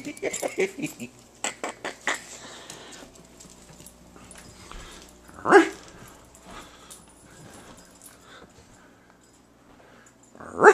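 Italian greyhound playing: a quick patter of clicks and scuffles in the first couple of seconds, then a single short bark about halfway through and another at the very end.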